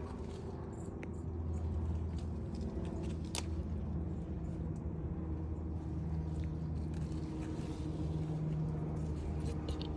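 Steady low hum of a running engine, with a couple of sharp clicks.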